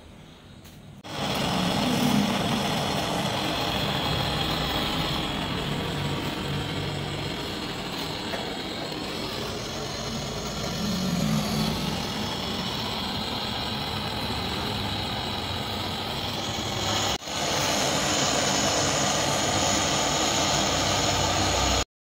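Handheld gas-canister torch burning with a steady rushing flame while brazing a refrigerator's copper pipe joint. It starts about a second in and dips once briefly near the end.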